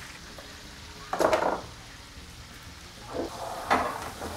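A large metal pan of lamb sizzling in its juices as it is pulled from the oven, with a few short scraping clatters of the pan; the loudest comes about a second in.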